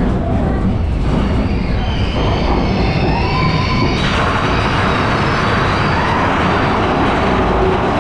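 Big Thunder Mountain Railroad mine-train coaster cars rolling along steel track with a steady low rumble and wheel squeal that rises and falls. About halfway through, a brighter rushing noise joins in.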